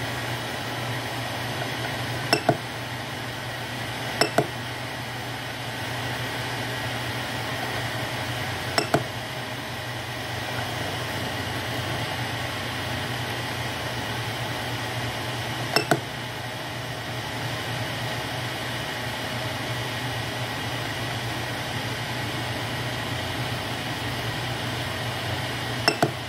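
Ender 3 V2 3D printer's cooling fans running steadily with a low hum. Over this come five sharp double clicks at irregular intervals as the rotary control knob is pressed to move through the screen menus.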